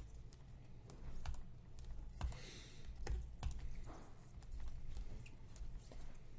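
Computer keyboard typing: scattered light key clicks at an uneven pace, over a low steady hum.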